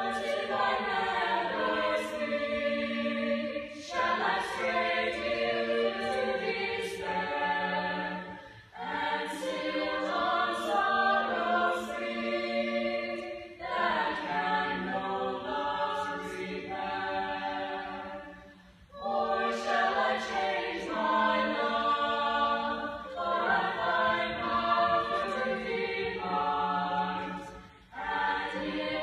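Small choir singing in long held phrases, with brief pauses between them.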